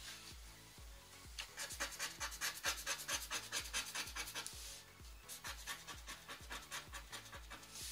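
A lottery scratch card's coating being scratched off in rapid strokes, several a second, with a brief pause about five seconds in. Background music with a steady beat plays underneath.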